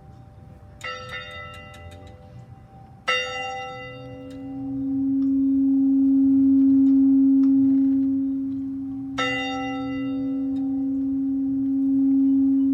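A bell struck three times, about a second in, three seconds in and nine seconds in, each stroke ringing on. A steady low tone swells in at about four seconds and becomes the loudest sound.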